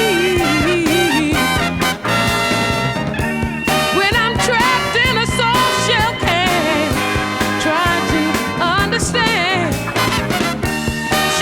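Upbeat instrumental background music with a steady beat and a bending lead melody line, in a swing or ska style.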